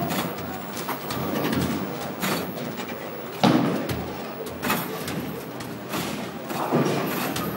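Basketballs thudding against the backboard, rim and net of a Hoop Fever arcade basketball machine during rapid shooting, over a steady arcade din. The loudest thud comes about three and a half seconds in.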